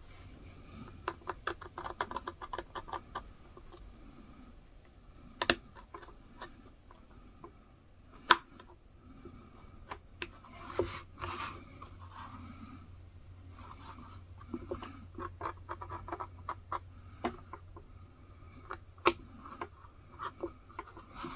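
Hobby knife slicing through leather on a plastic cutting board: runs of small scratchy clicks as the blade drags through the hide, with three sharp clicks standing out.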